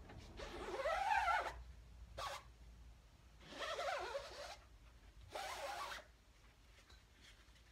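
Squeegee dragged across an inked screen-printing screen: three long scraping strokes of about a second each, around a second in, at about four seconds and just before six seconds, with one short stroke in between. The first stroke carries a rising-and-falling squeak.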